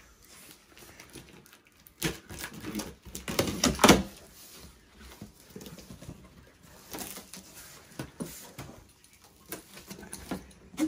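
Large cardboard shipping box being cut and opened by hand: scraping of a small blade and cardboard, irregular clicks and rustles, loudest in a burst about two to four seconds in.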